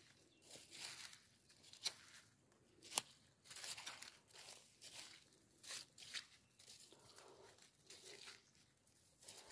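Quiet footsteps through dead leaves on the forest floor, about one step a second, with a sharp click about three seconds in.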